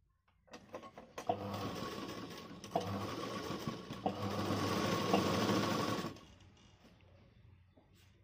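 Sewing machine stitching through fabric: it starts up a little under a second in, runs steadily for about five seconds with a few sharp clicks, then stops abruptly.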